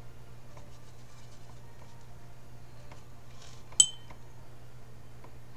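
Paintbrush rinsed in a glass of water, with one sharp ringing clink of the brush against the glass about two-thirds of the way in.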